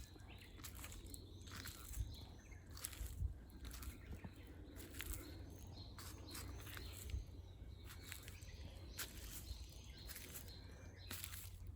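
Forest ambience: small birds chirping now and then over frequent short crackles of dry fallen leaves, with a low wind rumble underneath.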